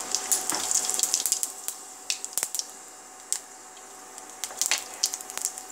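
Cumin seeds crackling and sizzling in hot oil, with a dense run of pops for the first couple of seconds that thins to scattered pops and then picks up again near the end.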